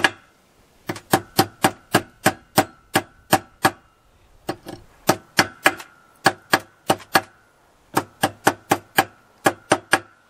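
Hammer peening the rivets of a spliced chainsaw chain on an anvil: sharp metallic strikes, about three a second, each with a brief ring. They come in runs of several with short pauses between.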